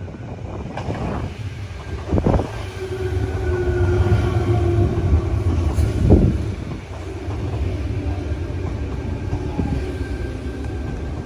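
Tangara double-deck electric train pulling into the platform and slowing, with a heavy low rumble of wheels on rail. Two loud thumps come at about two and six seconds in, and a steady whine runs through the middle as it brakes.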